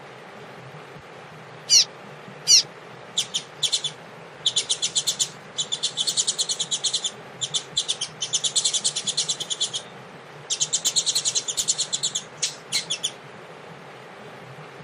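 Double-collared seedeater (coleiro) singing the tui-tui song: two short falling whistles, then three long runs of fast, evenly repeated high notes, the song stopping about 13 seconds in.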